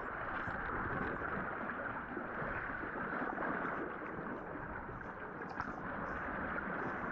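Ocean surge washing and gurgling over shoreline rocks around a swimmer, a steady, muffled wash with faint crackles through it.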